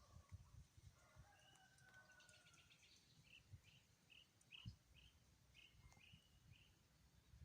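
Faint birdsong: a soft falling whistle and a brief trill, then a run of about ten short, evenly repeated high notes, about two a second, over a low uneven rumble.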